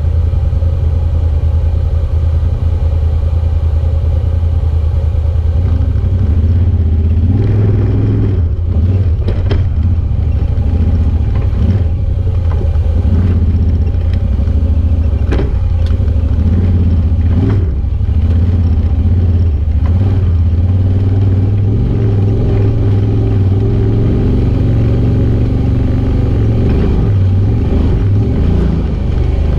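Side-by-side UTV engine running steadily as it crawls over a rocky trail, with knocks and clatter as the machine jolts over rocks.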